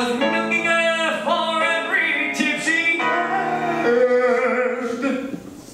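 A man singing a showtune, holding long notes that slide between pitches. The singing fades out near the end.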